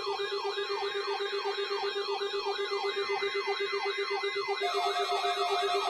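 Electronic emergency-alert siren tone: a wailing sweep that falls in pitch about three times a second over a pulsing low hum. A steady tone joins in about four and a half seconds in.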